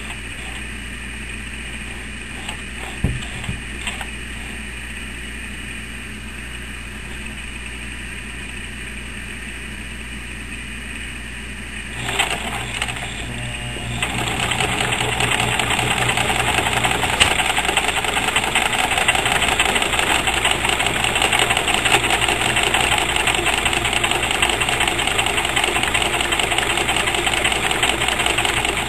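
A sewing machine starting up about twelve seconds in, then running steadily from about fourteen seconds with a fast, even needle rhythm as it stitches. Before that, only a steady low hum with a few clicks.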